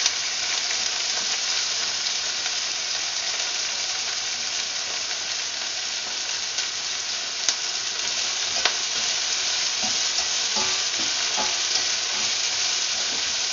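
Sliced red onion and ginger sizzling in hot oil in a nonstick pan as they soften, a steady frying hiss, stirred with a spatula that clicks against the pan a few times.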